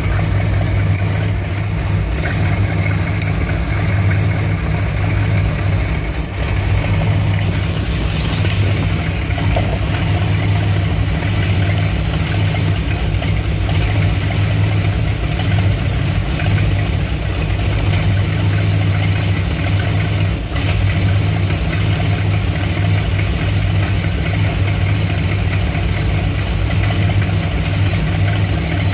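1975 Dodge B200 van's Mopar 360 small-block V8 with a two-barrel carburettor, idling warm. The idle is rough, as it still is after a new ignition coil, a condition in which this engine tends to stall once warmed up.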